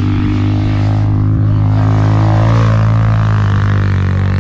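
Off-road quad engine running steadily close by, a constant low drone with a strong fundamental and many overtones.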